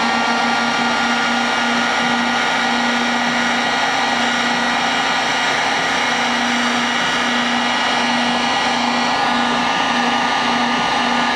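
Handheld electric heat gun running at full speed: a steady rush of hot air with a constant motor whine. It is shrinking heat-shrink tubing over a soldered wire joint.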